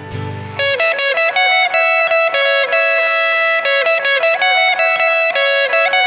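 Instrumental music: a plucked, guitar-like instrument picks a bright, repeating run of quick notes over a held note. It takes over from a lower strummed passage about half a second in.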